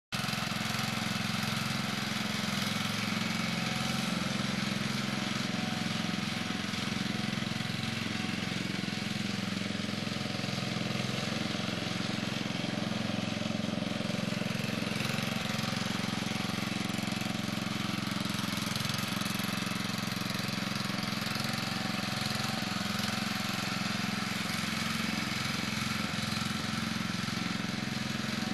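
Murray Lawn Chief rear-engine riding mower's engine running at a steady speed, even and unbroken, a sign that it is running well.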